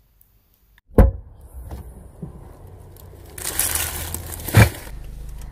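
A mesh sack of onions with a plastic label being handled, crinkling and rustling loudly for about a second before a thump as it is set down, after a sharp knock about a second in. A car engine then idles with a steady low hum.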